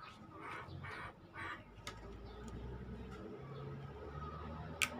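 Hands handling wiring on an opened CRT TV chassis: short rustling handling noises in the first second and a half, a click about two seconds in, and a sharper, louder click near the end.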